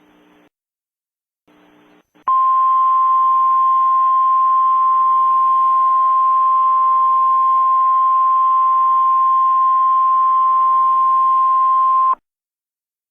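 Emergency alert attention tone: one steady, unbroken tone a little above 1 kHz over a hiss of static. It starts abruptly about two seconds in, holds for about ten seconds and cuts off sharply. Before it there is a faint hiss and hum, broken by a short silence.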